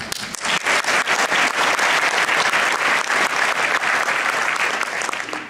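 Audience applauding: many hands clapping, which dies away near the end.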